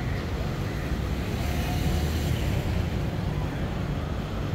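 Busy street ambience: a steady rumble of passing traffic with faint voices of people around.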